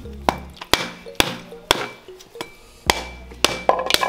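Machete blade striking a whole coconut held in the hand to crack its shell: about seven sharp knocks, roughly two a second, with a short pause in the middle.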